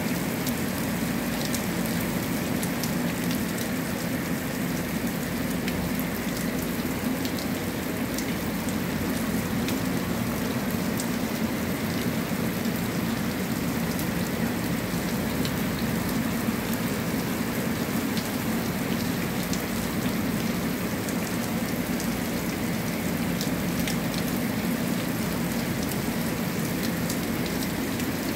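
Heavy rain pouring steadily onto a concrete platform: an even hiss with many scattered close drop hits.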